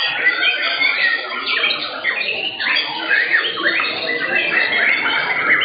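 Several white-rumped shamas singing at once, a dense, loud tangle of overlapping whistles and chirps.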